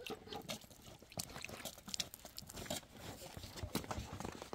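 Faint, irregular light knocks and clicks of objects being handled and set down, with a few louder knocks near the middle.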